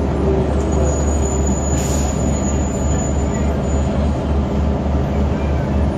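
Interior of a 2002 New Flyer D40LF transit bus under way, its Detroit Diesel Series 50 diesel engine giving a steady pulsing drone under road noise and cabin rattle. A faint high whine sounds for about three seconds near the start.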